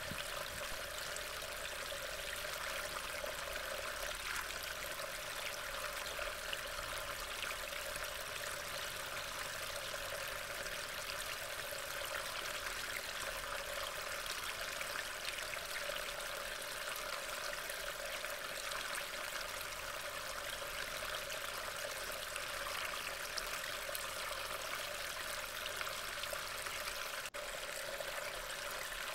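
Steady rain falling, heard as an even hiss through a trail camera's microphone, with a momentary break near the end.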